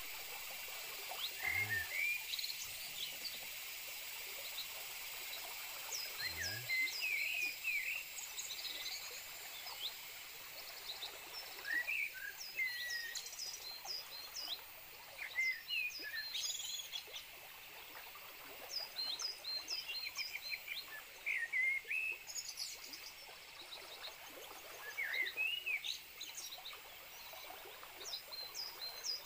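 Chorus of small wild animals in a flooded swamp forest: many short chirps, often in quick runs, over a steady high hiss.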